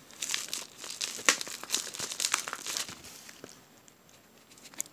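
Mailed package being torn open by hand, its wrapping crinkling in a run of sharp crackles and rustles that die down about three seconds in.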